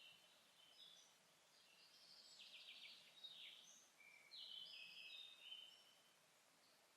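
Faint songbirds singing in a forest: scattered short high whistled phrases, with a quick trill about two and a half seconds in and a run of clear notes a little past the middle.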